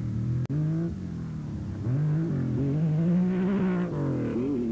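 Porsche 911 rally car engine at full throttle, its note climbing through the revs and dropping back at gear changes. The sound cuts out briefly about half a second in.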